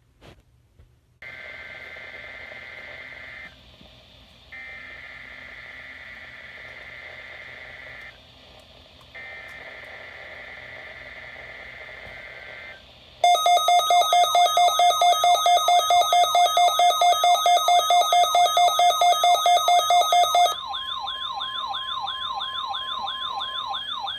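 Emergency alert test signal from a NOAA Weather Radio broadcast: three short bursts of screeching SAME digital header data. About thirteen seconds in a much louder, rapidly pulsing warbling alarm tone starts, and it drops quieter about seven seconds later into a steady tone under slower sweeps.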